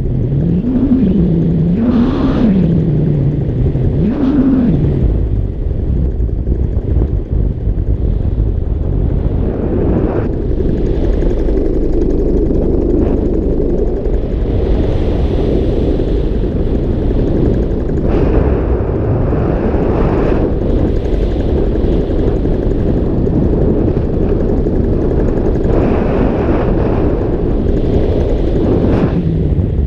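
Paramotor engine running in flight, with wind rushing over the microphone. A tone swings up and down in pitch three times in the first few seconds.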